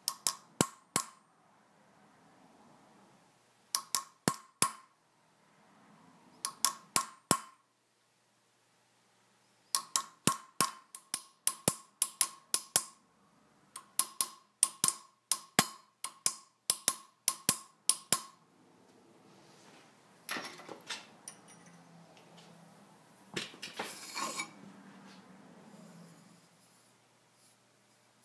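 Small hammer tapping a chasing tool against a hammered metal vase on a steel stake, making sharp ringing metallic taps. They come in short groups at first, then in quicker steady runs of two or three taps a second as a line is traced into the metal. After that, the taps give way to a stretch of rubbing and scraping.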